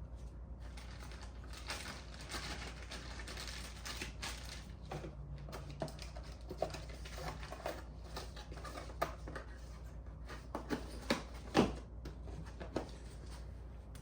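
Scattered light clicks and knocks of parts and tools being handled during a coil-pack and spark-plug swap, over a steady low hum. The loudest knock comes near the end.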